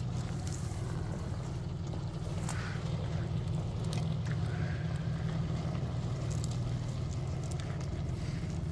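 Ford Explorer SUV's engine running as it crawls past at low speed, a steady low drone that grows a little louder about three seconds in.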